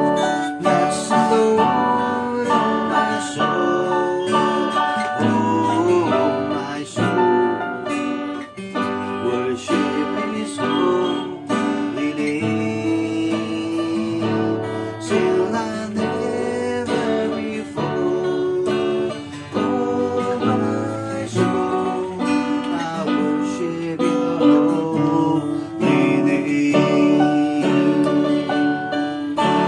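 Techno T9690i portable electronic keyboard playing a melody in a guitar-like plucked tone over its rhythm accompaniment.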